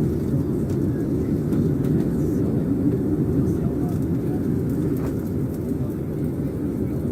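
Steady, muffled rumble of an airliner's jet engines and airflow heard inside the passenger cabin, even and unchanging.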